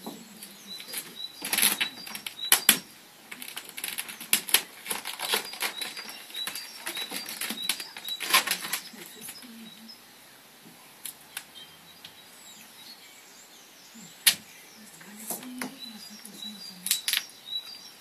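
Plastic squeegee scraping and rubbing vinyl wrap film onto a car door, a dense run of sharp scrapes and rustles in the first half, sparser later with one loud click a little after the middle. Small birds chirp faintly in the background.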